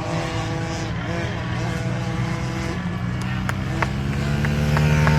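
Small dirt bike engines running at a motocross track, with a steady engine drone that grows louder near the end.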